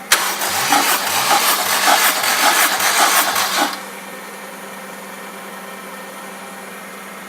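Honda K20A engine cranked on its starter motor for a compression test: about four seconds of starter whir with a rhythmic chug roughly three times a second as the cylinders come up on compression, then it stops. A steady low hum remains afterwards.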